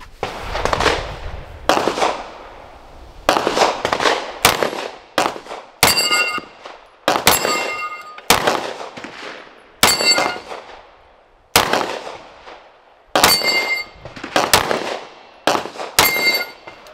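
Canik Mete MC9 9mm pistol fired at a Texas Star steel target: about a dozen shots at an unhurried pace, roughly a second or more apart. Several shots are followed by the clang and ring of a hit steel plate.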